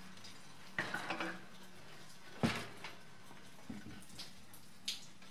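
Metal clinks and knocks from a BMW E30 front strut assembly, with its coil spring and brake disc, being handled and set down on a wooden workbench. There is a cluster of knocks about a second in, the loudest knock about two and a half seconds in, and a few lighter taps after it, over a faint steady hum.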